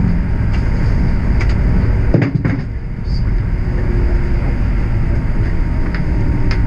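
Streetcar running along its rails, a steady low rumble with a faint motor hum, scattered light clicks, and a pair of knocks about two seconds in.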